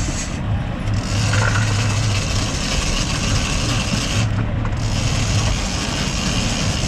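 A boat's engine running under a steady rush of wind and water noise, with a low hum that fades in and out and the rushing briefly easing a little after four seconds.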